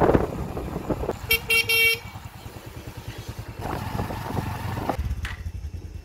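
Motorcycle riding along, engine and wind rumbling on the microphone; about a second and a half in, a horn honks in a few short blasts in quick succession.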